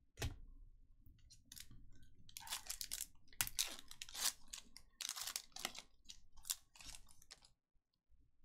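Foil wrapper of a Panini NBA Hoops basketball card pack being torn open by hand: a sharp tap just after the start, then several seconds of crackly crinkling and tearing that stops about a second before the end.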